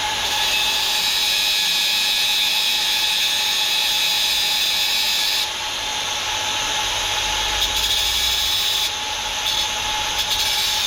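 Cordless drill running continuously under load while drilling a hole, with a steady high whine. The sound eases a little about five and a half seconds in and dips briefly near the end.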